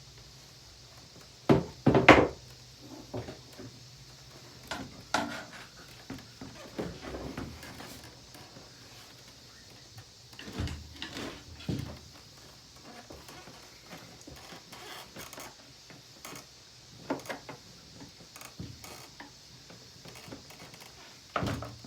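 Scattered knocks, clatters and scrapes of hard plastic and metal vacuum-cleaner parts being handled and pried apart, with the loudest pair of knocks about two seconds in and more bursts around five, eleven, seventeen seconds and near the end, over a low steady hum.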